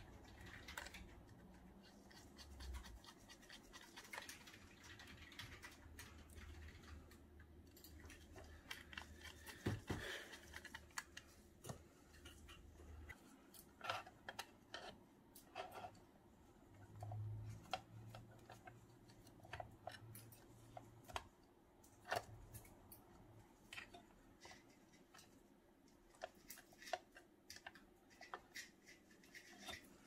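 Faint, scattered small clicks and scrapes of a precision screwdriver turning mounting screws into a 2.5-inch SSD and of the drive being handled and seated in a Mac mini's drive bay.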